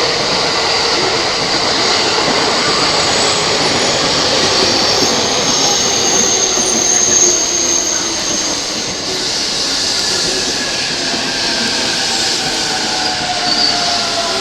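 Electric commuter train running along a station platform: steady wheel and rail noise with falling motor tones, and a high wheel squeal about six to eight seconds in.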